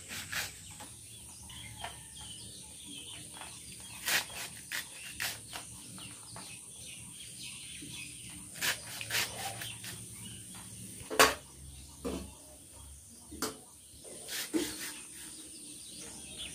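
Hands picking and snapping leafy greens (bang saag) off their stems and cutting them over a plastic tray: scattered light snaps and clicks, the sharpest about eleven seconds in.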